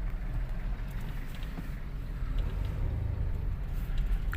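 Toyota Vios's 1NR four-cylinder engine and road noise, heard from inside the car while driving. It runs steadily with no misfire now that the faulty ignition coil has been dealt with.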